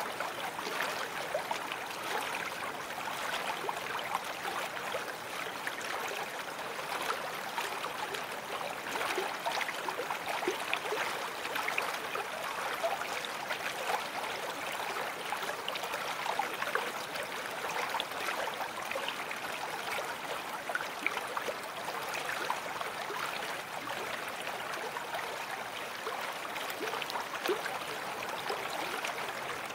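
A babbling brook: running water flowing steadily, full of small gurgles and splashes.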